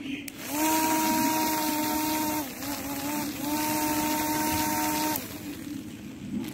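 Small electric hobby motor spinning a propeller: a steady whine with a rush of air that spins up about half a second in, sags briefly near the middle, picks up again and stops about five seconds in.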